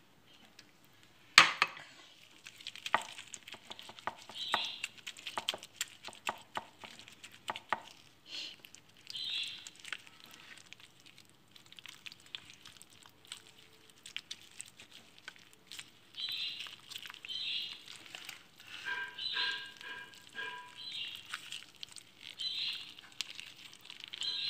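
Gloved hands smearing and rubbing a wet spice-and-tomato paste over a whole fish on a plate: soft squelching with the crinkle of plastic gloves and scattered small clicks, and one sharp click about a second and a half in.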